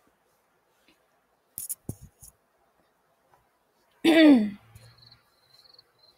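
Mostly near silence, with a few soft clicks about one and a half to two seconds in. About four seconds in, a woman gives a short hum that falls in pitch.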